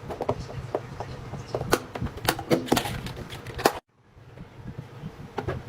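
Irregular sharp clicks and pops from fidget toys worked by hand, over a low background hum; they cut off suddenly for a moment about four seconds in, then resume more faintly.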